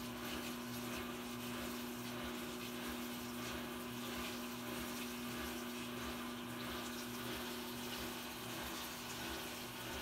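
Mabe top-loading washing machine filling its tub at the start of a cycle: a steady rush of water running in, with a constant low hum.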